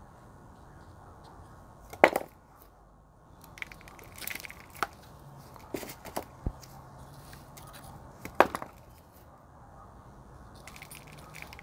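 Scattered sharp knocks and small clicks and scrapes of a stick and hands working potting soil down into a plant pot, with two louder knocks, one about two seconds in and one past the middle.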